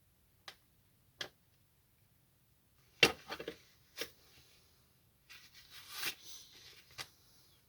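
Hand work on a metal oxy-acetylene cutting torch: two light clicks, then a sharp metal clank about three seconds in with a brief rattle, another knock a second later, and a scraping rustle near the end closing on a click.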